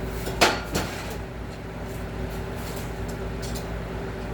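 Two sharp metal knocks about a third of a second apart, like steel stock being handled and set down, followed by a few faint ticks, over a steady background hum.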